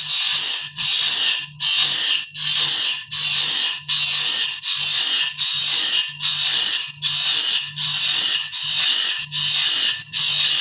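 Bandsaw blade sharpener grinding the blade tooth by tooth: a harsh grinding burst about one and a half times a second, each cut off by a short gap as the blade steps on to the next tooth.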